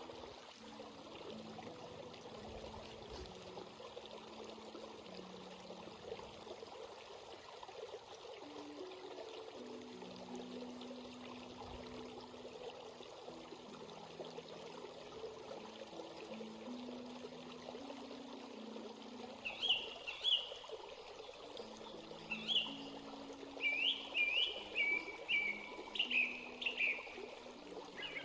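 Stream water flowing and trickling steadily over rocks. From about two thirds of the way in, a bird chirps repeatedly in short, high calls that stand out above the water.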